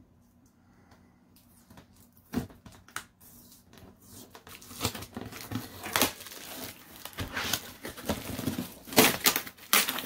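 Cardboard box and its packing tape being torn open by hand, with irregular ripping, scraping and crinkling. It starts after about a second and a half. There is a sharp rip about two seconds in, and louder rips around six and nine seconds.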